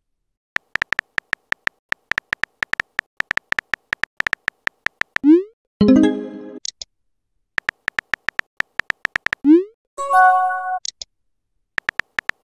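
Phone keyboard sound effects from a texting-story app: rapid tapping clicks as a message is typed, then a short rising swoosh and a brief electronic tone as the message bubble appears. This happens twice, and a third short burst of typing near the end closes with another swoosh.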